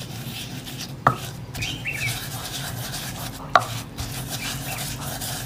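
Wooden pestle pounding and grinding grated soap with turmeric powder in a wooden mortar: dull knocks with scraping and crumbling between, and two sharper knocks, one about a second in and one past three and a half seconds.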